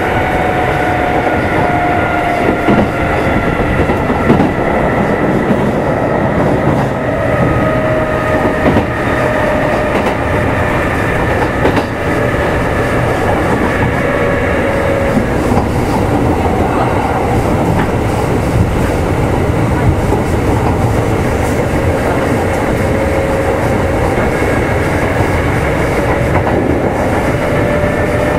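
Kintetsu 2800-series electric motor car running, heard from on board: the traction motor and gear whine falls slowly as the train slows, then starts to rise again near the end as it picks up speed. Wheels clatter over rail joints under a steady rumble.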